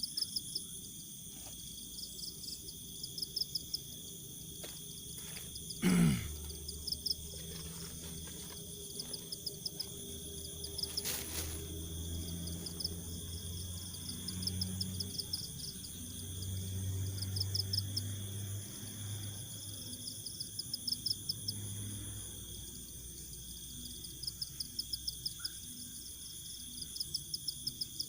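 Night insect chorus with crickets trilling in short repeated bursts over a steady high-pitched hum. A low hum comes and goes, and a brief loud falling sound cuts through about six seconds in.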